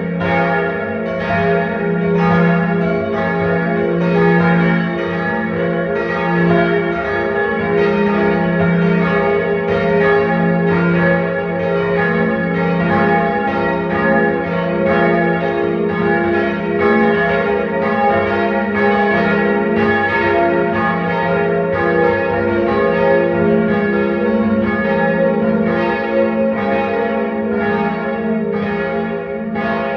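Several church bells swinging and ringing together in a full peal, their strokes overlapping irregularly in a continuous clangour, with the lowest bell's tone humming beneath.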